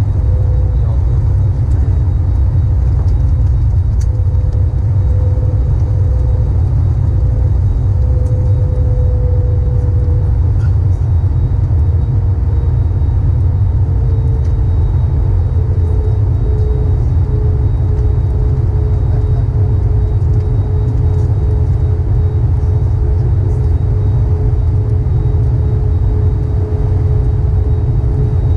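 Airbus A321neo cabin noise in flight: a steady deep rumble of engines and airflow heard at a window seat, with a faint steady tone above it that drops slightly in pitch about halfway through.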